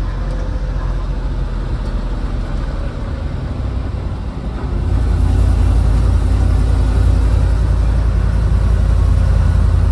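M715 army truck driving, heard from inside its cab: a steady engine and road rumble that grows louder and deeper about five seconds in.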